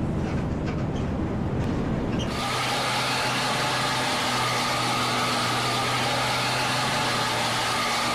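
Road traffic with a large vehicle's engine running close by: a low rumble for about the first two seconds, then a steady engine hum and road noise.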